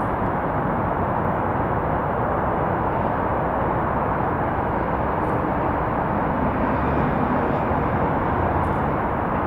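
Distant jet engine noise from a Boeing 737-800's CFM56-7B turbofans on final approach: a steady, even rush with no distinct events.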